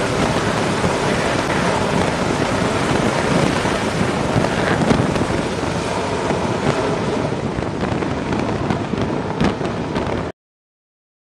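F/A-18 Super Hornet's twin turbofan engines at full power during an electromagnetic-catapult launch from a carrier deck: a loud, steady jet roar that eases a little as the jet climbs away, then cuts off suddenly near the end.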